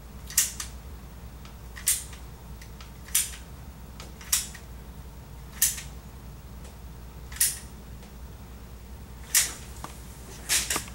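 Hand-squeezed dispensing gun for bite registration material clicking with each pull of its trigger as the material is pressed out through the mixing tip into an impression tray: about eight sharp clicks, one every second or two.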